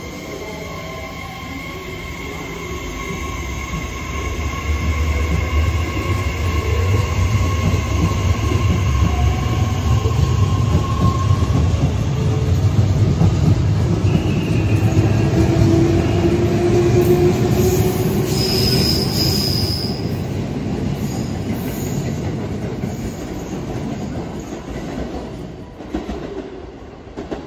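Train passing close by, its low rumble building over the first few seconds and fading near the end. Several drawn-out high tones ride over the rumble, one of them gliding slowly.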